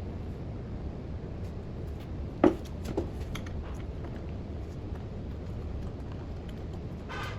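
Two sharp knocks about half a second apart, the first the loudest, over a low steady hum, with a few faint clicks and a brief rush of noise near the end.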